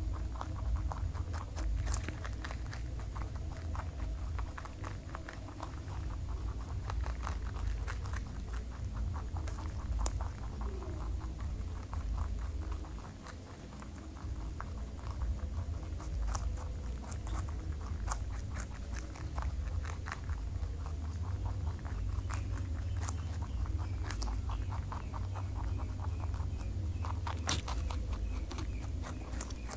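Pet rabbits chewing raw vegetables, mainly a carrot: a rapid, irregular run of small crisp crunching bites, picked up close by a clip-on microphone, over a low steady hum.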